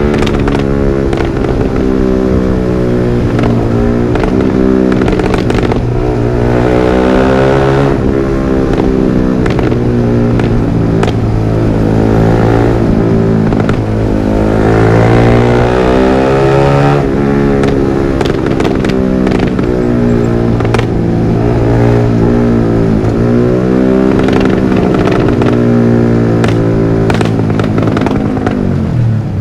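Yamaha R15 V3's 155 cc single-cylinder engine through a Villan MP1 aftermarket exhaust, its pitch rising and falling repeatedly as it is revved and eased off. Sharp pops and crackles from the exhaust come through here and there, mostly as the revs drop.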